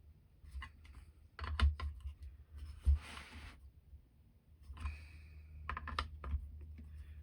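Small metal parts and hand tools being handled while a chainsaw carburettor is put back together: irregular light clicks and taps, with a short scrape about three seconds in, over a steady low hum.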